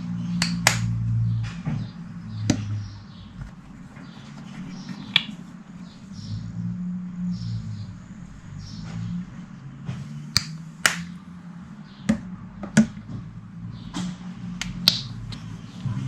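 Coloured slime being handled and squeezed, giving off sharp, irregular pops and clicks as air pockets burst, about ten over the stretch, over a low hum.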